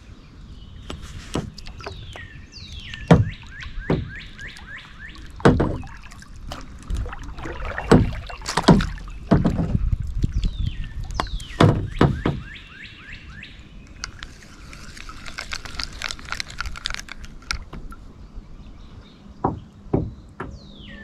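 Irregular knocks and bumps of gear being handled against a kayak, a dozen or so, loudest in the middle. A songbird sings several times in between, each song a quick run of chirps falling in pitch.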